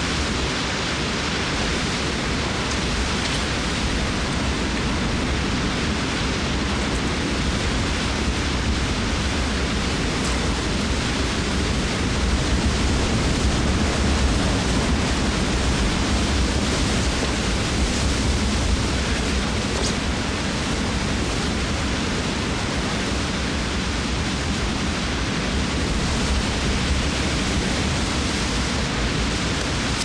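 Steady rush of a fast white-water river and waterfall, swelling a little about twelve seconds in.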